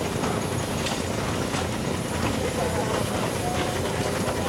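Several antique steam traction engines running, a steady mechanical clatter.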